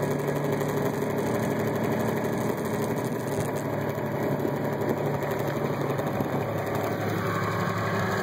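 Kubota compact tractor's diesel engine running steadily.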